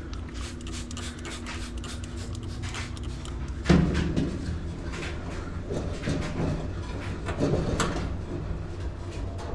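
Knocks, clicks and scraping as metal appliance parts and tools are handled while a stuck bearing is cleaned, with one loud knock a little under four seconds in, over a steady low hum.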